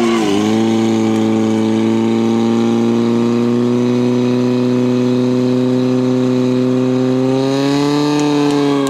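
Portable fire pump engine running at high revs under load as it drives water through the hoses. Its pitch dips briefly at the start, holds steady, then rises about a second before the end.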